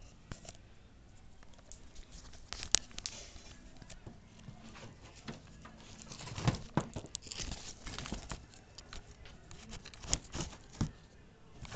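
Handling noise of a homemade PVC spud gun: scattered clicks, knocks and rustling, with one sharp click about three seconds in and a busier stretch of scraping and knocking past the middle.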